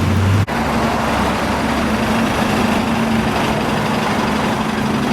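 Cars idling in a drive-thru line: a steady engine hum with a low held tone, after a short break about half a second in.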